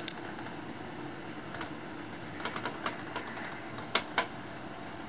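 A sharp click, a light run of ticks, then two sharp clicks close together about four seconds in, over a steady low background hum.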